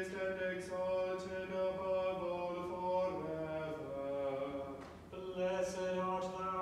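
A man's voice chanting a canticle of Morning Prayer, holding long, steady notes on a reciting tone. The pitch steps down about three seconds in, and there is a brief break for breath near five seconds before the chant resumes.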